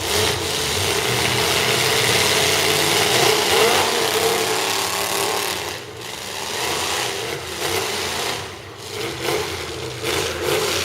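Demolition derby car engines revving hard over a loud, noisy din, wavering in pitch and dropping back briefly about six and nine seconds in.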